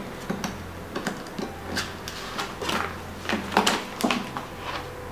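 Handling noises from a flexible plastic cover sheet on a gum-paste storage board being lifted, flexed and laid back down: a run of irregular light taps and rustles.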